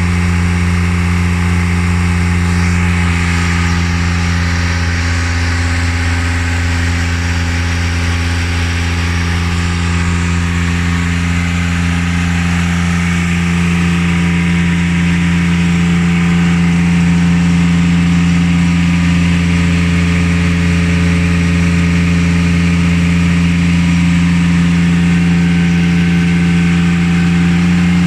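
An engine running steadily at constant speed, an even low hum that gets slightly louder in the second half.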